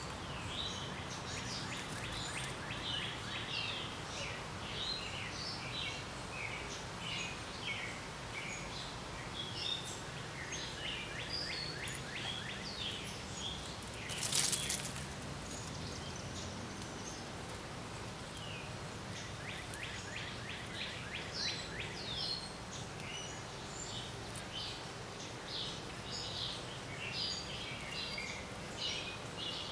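Songbirds chirping and singing in short, repeated phrases, over a steady outdoor background. About halfway through comes a brief, louder rustle.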